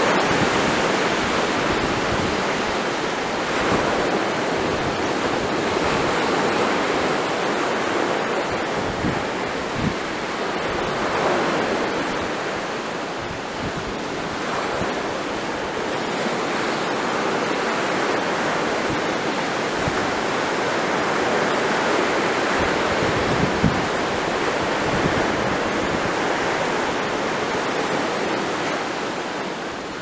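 Baltic Sea surf breaking and washing over a pebble beach: a steady rushing that swells and eases, with wind buffeting the microphone in low thumps. It fades out near the end.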